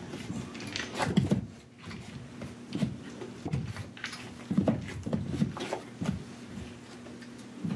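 Irregular knocks, bumps and rubbing of hands and hardware on wooden attic framing and plywood, a few sharp clicks among duller thuds.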